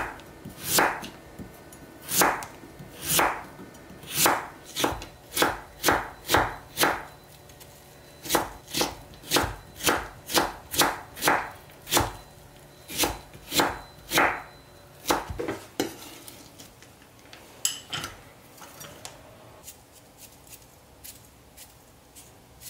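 Chef's knife slicing and julienning a Korean radish on a wooden cutting board: a run of sharp knife strokes against the board, about one a second at first and quickening to two or three a second, stopping about sixteen seconds in. A few fainter knocks follow near the end.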